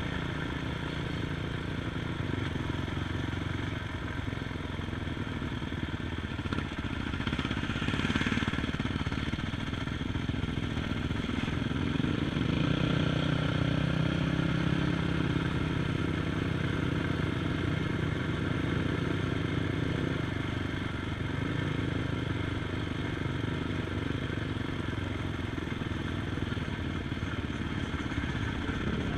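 ATV engine running, its engine speed rising and falling, louder for a few seconds around the middle.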